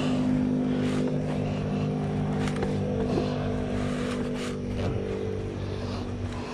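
A steady engine drone holding one pitch, easing off slightly near the end, with a few light knocks and rustles as gloved hands grip the wooden ladder rungs.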